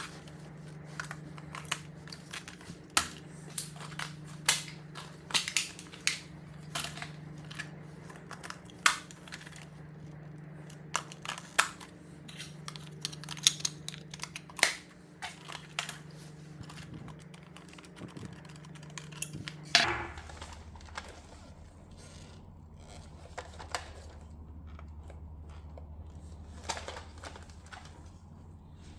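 Toy robot's packaging being handled and opened: irregular crinkling, clicks and snaps, thickest in the first half. A steady low hum runs underneath and drops lower about two-thirds of the way through.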